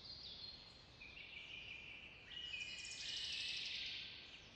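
Faint birdsong ambience: several birds chirping and twittering in high notes, growing a little louder about halfway through.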